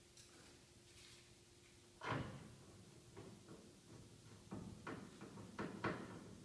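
A screwdriver working in the top panel of a Sanyo top-loading washing machine: one sharp knock about two seconds in, then a run of small clicks and knocks.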